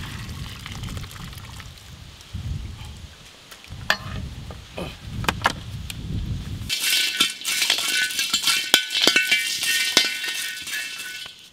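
A few clinks of steel on a steel tray as boiled beef on the bone is handled. About seven seconds in, whole spices (cardamom, cinnamon sticks, star anise, cloves, peppercorns) rattle and scrape in a dry wok as a metal spatula stirs them, dry-roasting them for grinding into garam masala.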